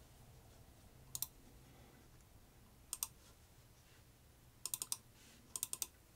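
Computer keyboard keystrokes: a single key press about a second in, another around three seconds, then two quick runs of several keys near the end, over a faint low hum.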